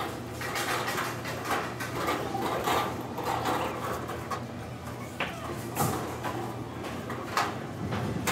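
Metal flatbed cart rolling and rattling across a concrete floor, with sharp clatters every so often, over a steady low hum.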